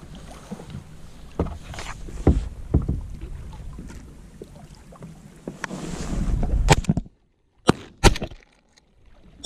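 Water lapping against a low layout boat with wind on the microphone, then about two-thirds of the way through, three pump-shotgun shots in quick succession, the audio cutting out between them.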